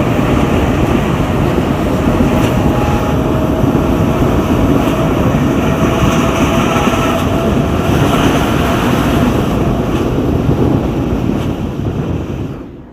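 CAF-built CPTM Series 2000 electric multiple unit running, heard from inside the carriage: a steady rumble of wheels on rail with a faint whine from the electric traction motors and a few faint clicks. The sound cuts off abruptly near the end.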